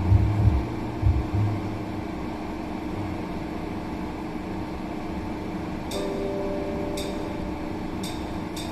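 Steady hum of a karaoke room. From about six seconds in, the karaoke backing track's intro comes in faintly: a held chord with a sharp tick about once a second.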